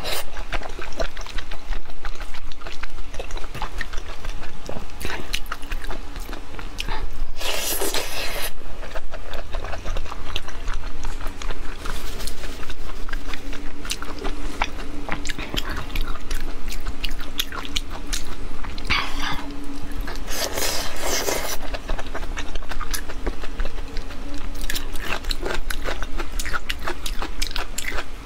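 Close-miked wet chewing and lip smacking of braised pork intestines, a steady stream of soft sticky clicks. Two brief louder breathy rushes, each about a second long, come about a third of the way through and again about three quarters through.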